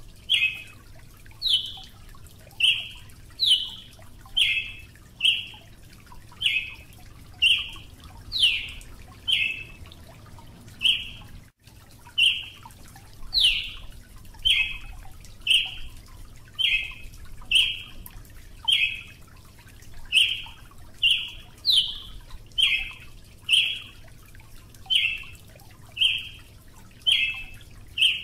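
Brazilian tanager (Ramphocelus bresilius) calling: a steady series of short, sharp call notes about one a second, some of them quick downward-sweeping notes.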